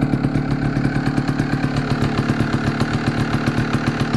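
Sherco trials motorcycle engine idling steadily, with an even, rapid beat.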